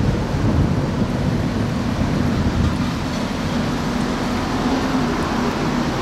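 Strong wind buffeting the microphone: a steady low rumble.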